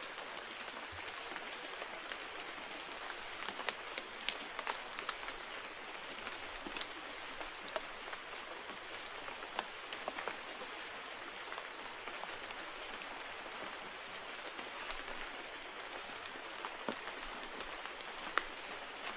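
Steady rain hissing, with scattered drops ticking close by, and one short, high, falling chirp about fifteen seconds in.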